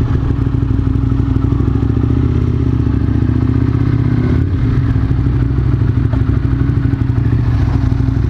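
Motorcycle engine running steadily under way, with a brief dip in its note about four seconds in.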